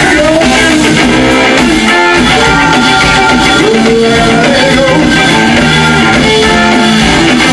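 Live blues band playing loudly: electric guitar and bass guitar.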